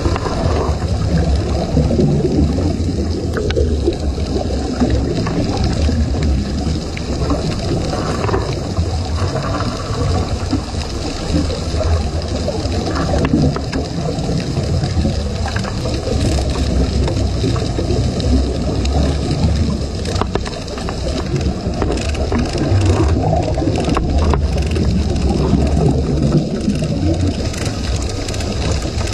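Heavy machinery running steadily: a loud low rumble with a faint, steady high whine over it and a few short knocks.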